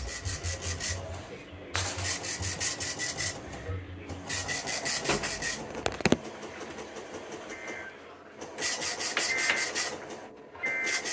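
Weather radio receiver giving out rasping static in bursts of a second or two, with short gaps between them and a faint steady tone running through each burst.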